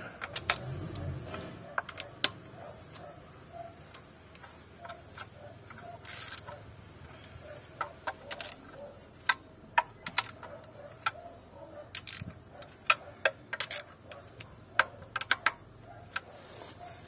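A socket wrench on a long extension being turned by hand at a car engine's spark plug wells, giving scattered sharp metallic clicks with a short scraping rasp about six seconds in.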